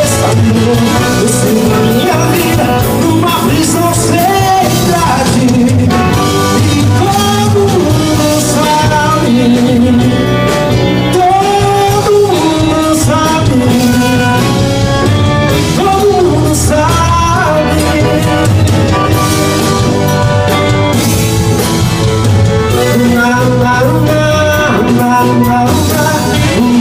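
Loud band music with drums under a melody line.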